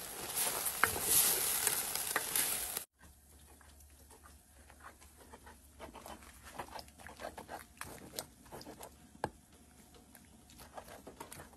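Diced beef chuck sizzling in a pot while it is stirred with a spoon. After about three seconds the sizzle cuts off suddenly, leaving only scattered faint clicks and taps.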